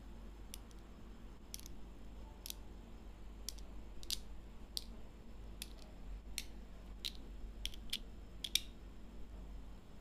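Small magnetic balls clicking as they snap together in the hands: about a dozen sharp, irregular clicks.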